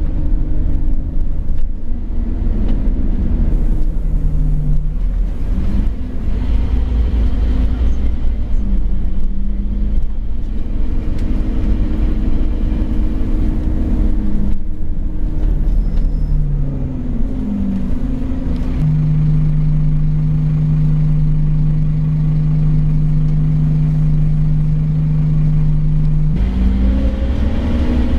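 Scania OmniCity N230UD double-decker bus's five-cylinder diesel engine heard from inside the lower deck, its note rising and falling through the gear changes over a constant deep rumble. About two-thirds of the way in it settles on one steady drone for several seconds, then the rumble builds again as the bus picks up near the end.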